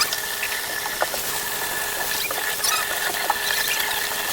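Golden retriever puppies giving short high squeaks over a steady rushing hiss.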